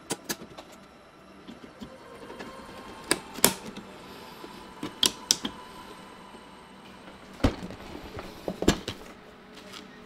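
Several sharp plastic clicks a second or two apart as DDR4 RAM sticks are pushed down into a motherboard's memory slots and the slot latches snap shut.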